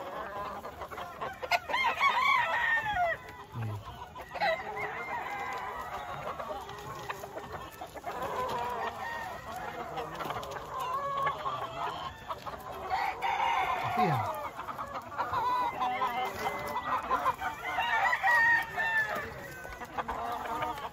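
Many caged gamecocks crowing and clucking, their calls overlapping, with louder bouts of crowing about two seconds in, around thirteen seconds and near the end.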